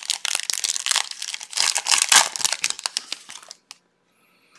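Foil wrapper of a Topps Chrome trading-card pack being torn open and crinkled in the hands, a dense rustling crackle that stops after about three and a half seconds.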